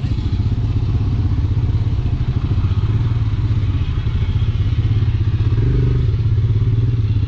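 Motorcycle engine running at low speed with a steady rapid low pulse, the bike creeping over a muddy, rutted road.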